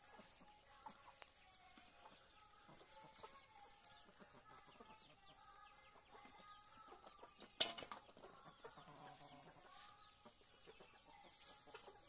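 Chickens clucking faintly while they feed, with one sharp knock a little past the middle.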